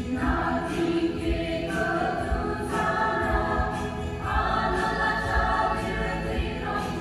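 Mixed church choir singing a hymn in several-part harmony, with held chords that change every second or two, over an electronic keyboard accompaniment.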